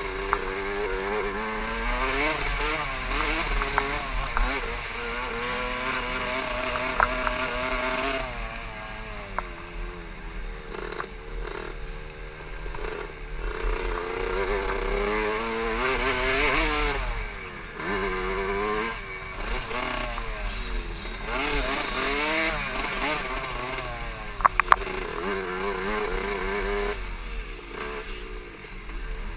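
KTM SX 65's small two-stroke engine, revving up and falling back repeatedly as the bike is ridden around a motocross track, heard from a helmet camera. A couple of sharp knocks stand out about three-quarters of the way through.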